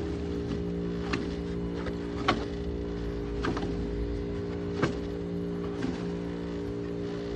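1970s Emerson Quiet Cool 5000 BTU window air conditioner running with its compressor on, a steady electric hum. Sharp ticks come about once a second while the fan motor, blocked by a bird nest, keeps trying to turn.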